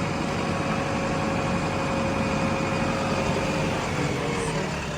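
Heavy diesel engine running steadily, with a faint whine that drops a little in pitch near the end.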